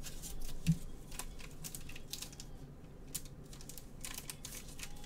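Gloved hands sleeving a trading card in clear plastic: a run of light, irregular clicks and crinkles from the sleeve and toploader, with one soft thump a little under a second in.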